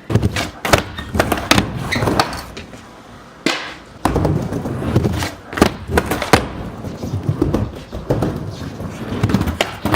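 Skateboard wheels rolling on pavement, with repeated sharp clacks and thuds of the deck and trucks striking the ground as a flip trick is tried.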